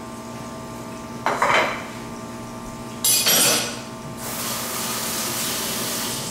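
Dishes and utensils clattering twice in a stainless-steel kitchen sink, then the tap running for about two seconds near the end.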